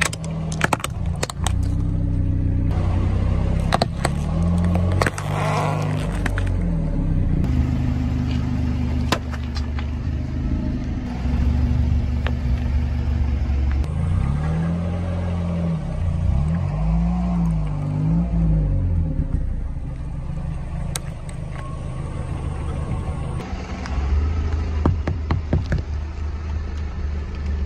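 A car creeping forward at low speed with its engine running, a tyre rolling over and crushing small plastic and rubbery objects. Sharp cracks and crunches come several times.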